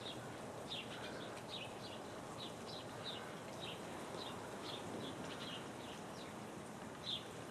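Small birds chirping: short, high chirps that fall in pitch, at irregular intervals about two a second, over steady background noise.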